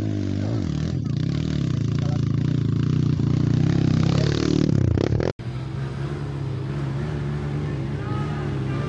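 Trail dirt-bike engines revving as a bike climbs the dirt track and passes close, loudest about four and a half seconds in. After a brief dropout, the engines of more bikes run steadily further off.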